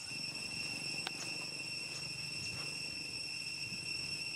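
Steady high-pitched insect drone holding two pitches, over a low rumble, with a single sharp click about a second in.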